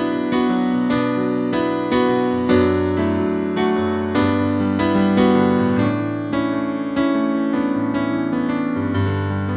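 Background music: a steady stream of struck keyboard-like notes that ring and fade, about two to the second.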